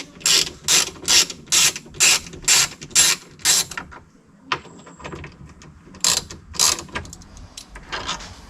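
Hand ratchet with a Torx bit clicking in quick, even strokes, about two to three a second, backing out a long screw that holds a power window motor in plastic; it pauses about halfway, then clicks a few more strokes.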